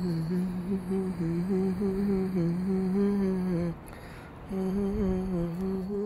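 A person humming a slow, wordless tune in two long phrases, with a short pause a little past the middle.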